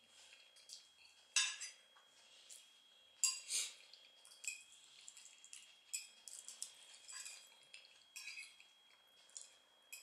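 A metal fork clinking and scraping on a plate of scrambled eggs and home fries as food is picked up, in scattered short clicks, two of them louder about one and a half and three and a half seconds in, with soft chewing sounds.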